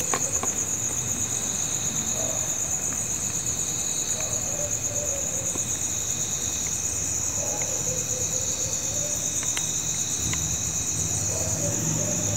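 Night insects trilling steadily in a high, finely pulsing chorus, with a few faint ticks.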